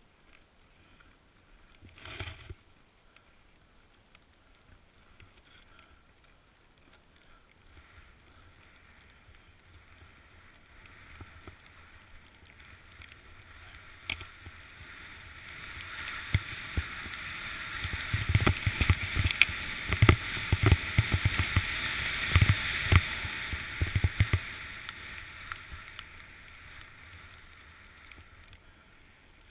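Snowboard sliding through powder snow: a soft hiss that swells to a louder rushing hiss in the middle of the run, with a quick series of thumps, and then fades again.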